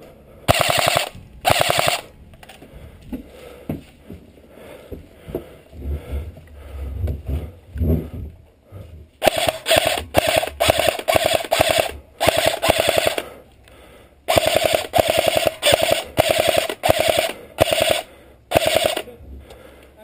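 Airsoft rifle firing on full auto in short rapid bursts: two bursts near the start, then after a pause of several seconds a long string of about a dozen bursts in quick succession.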